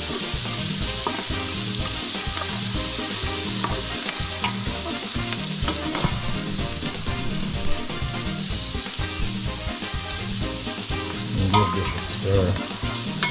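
Diced carrots, onions and garlic sizzling steadily in melted butter and oil in a large stainless steel pot, stirred with a spoon that scrapes and taps against the pot now and then.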